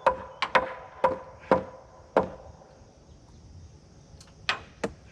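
Hammer blows knocking a heavy white oak header board sideways into position: six sharp strikes, about two a second, each with a short ring. After a pause of about two seconds come two lighter knocks near the end.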